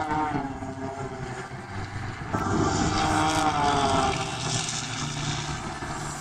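Piston engines of a four-ship formation of XtremeAir XA42 aerobatic propeller planes flying overhead. Their engine and propeller drone slides in pitch as the planes pass, and it grows louder about two seconds in.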